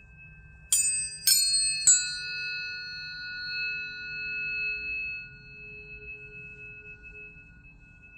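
Tuning forks struck three times in quick succession, each strike a bright metallic clink, then ringing on as steady pure tones of several pitches that slowly fade, over a fainter tone still sounding from earlier forks.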